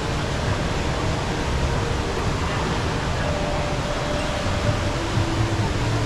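Steady rush of falling water from the Rain Vortex, a large indoor waterfall, with a faint murmur of voices from the crowd.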